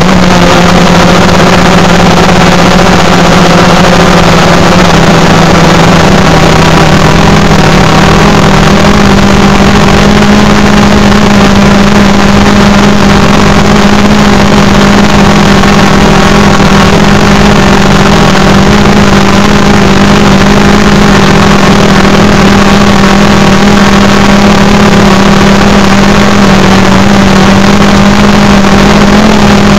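DJI Phantom 3 Pro quadcopter's motors and propellers running in flight, picked up by a recorder strapped to the drone itself: a loud, steady buzzing hum over wind noise, muffled by tape over the mic. Two close rotor pitches drift together about nine seconds in.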